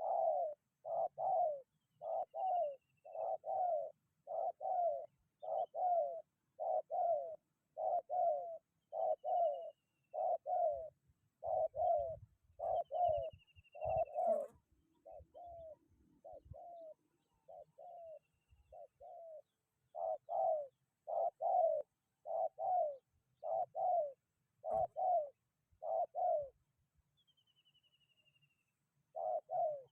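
Spotted dove (tekukur) cooing over and over in short two-part coos, just under one a second, pausing briefly near the end. Faint high chirps of small birds come a few times, and a low wind rumble sits under the middle.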